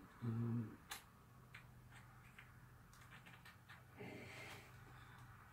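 Faint, scattered metallic clicks and ticks from the BMW R100R fork top as the cap and plunger are pressed down against a stiff new fork spring to seat the retaining ring. Near the start there is a short, low grunt.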